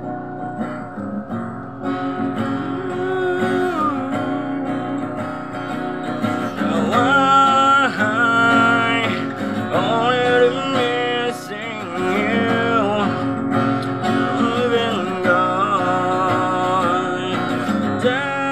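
Acoustic guitar strummed steadily; from about seven seconds in, a man's voice sings a melody over the chords.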